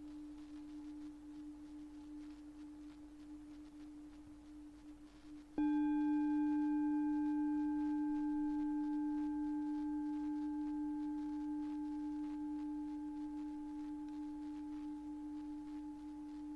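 Singing bowl ringing on one steady low tone. About five and a half seconds in it is struck again, louder, and several higher overtones ring out and fade one by one while the low tone slowly dies away.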